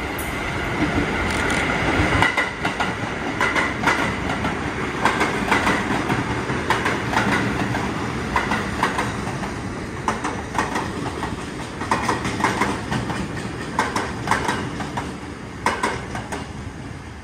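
R46 subway train passing on the express track without stopping, its steel wheels clacking over rail joints in quick pairs as each car goes by. The rumble swells at first and fades near the end as the train draws away.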